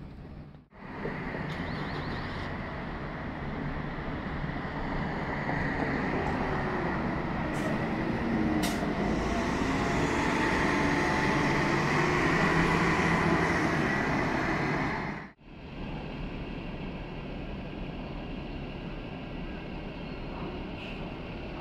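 A double-decker Alexander Dennis Enviro500 diesel city bus runs past at close range, its engine and tyres growing louder for several seconds with a rising engine note near the middle. It cuts off suddenly and is followed by steadier, quieter traffic noise.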